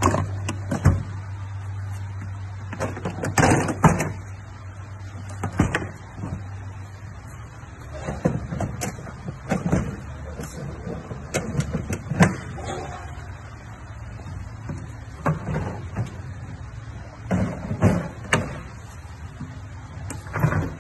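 Hard plastic clacks and knocks of Milwaukee Packout modular tool cases being handled: the stacked cases and the cart's top tray are knocked, latched and lifted apart in a string of separate sharp impacts. A low steady hum sits under the first several seconds.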